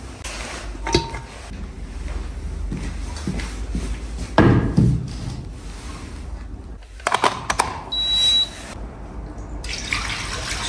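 Kitchen handling sounds: scattered knocks and clicks, a heavier thud a little before halfway, then a cluster of clicks and a short, high, steady electronic beep as the cooker under the wok is switched on. Near the end, water is poured into the wok.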